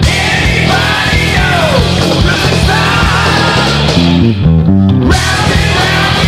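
Heavy progressive power metal played at full volume: distorted electric guitars, bass and drums, with sliding pitch lines over the riff. About four seconds in, the cymbals drop out for about a second while the bass and guitars step through a riff, then the full band comes back in.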